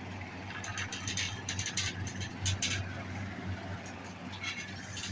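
Quick light clicks and ticks of small silver design balls and tools being handled on the buckle, a cluster in the first half and a few more near the end, over a steady low hum.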